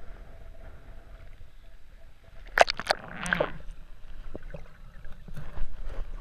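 Water at the surface, then several sharp splashes and a short rush of bubbles as the snorkeler and camera duck under, about two and a half to three and a half seconds in. After that comes the muffled, low sound of being underwater, with scattered small clicks.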